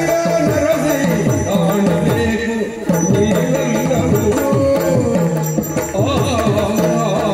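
Yakshagana percussion music: rapid drum strokes, many sliding down in pitch, over a steady drone.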